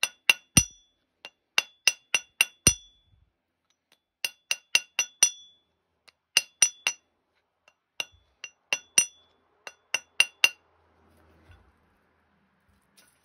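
Small ball-peen hammer tapping the tip of a flintknapping pressure flaker laid on a piece of steel crane rail, dressing (knurling) the tip. Sharp, ringing metallic clinks, about two dozen blows in quick runs of three to six with short pauses between, stopping about ten and a half seconds in.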